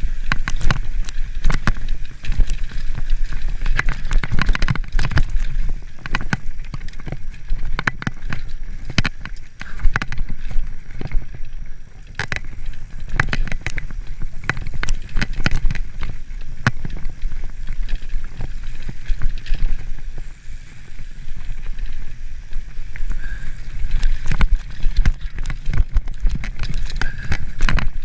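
A mountain bike clattering and rattling down a rough dirt-and-rock trail, with many sharp irregular knocks from the wheels and frame over a steady low rumble of wind on the microphone.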